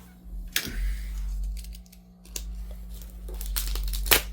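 Shipping package being opened by hand: crinkling and tearing of tape and packing, with scattered sharp clicks and knocks, the loudest just before the end.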